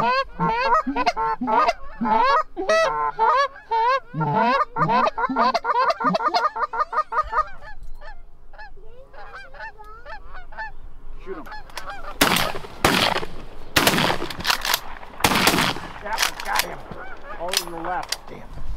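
A flock of Canada geese honking overhead, many birds calling over one another for the first several seconds and then thinning to scattered honks. From about twelve seconds in, a series of loud bangs breaks over the calling.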